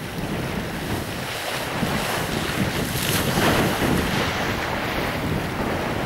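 Strong wind buffeting the microphone over small waves breaking and washing up a sand beach, the noise swelling briefly about halfway through.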